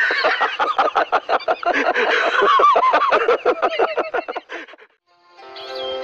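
Men laughing loudly in a long run of rapid, wavering ha-ha bursts that stop about five seconds in; a music cue comes in just after.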